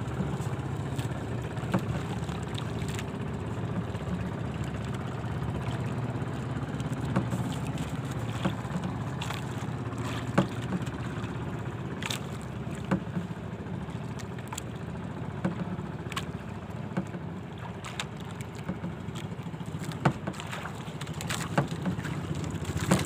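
Steady low rush of wind and sea water around a small outrigger fishing boat, with scattered sharp knocks and clicks, a few of them louder, about a second in, around ten to thirteen seconds in, and near the end.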